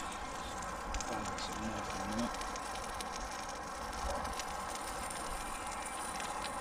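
Steak burgers sizzling in a frying pan over a wood campfire: a steady hiss with a few faint crackles from the fire.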